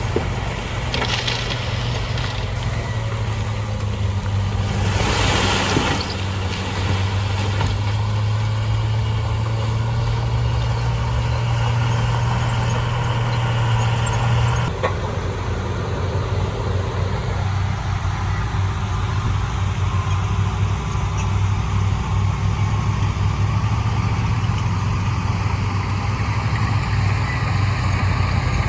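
Heavy diesel engine of earthmoving equipment running steadily under work, with two short hisses in the first few seconds. The engine sound changes abruptly about halfway through.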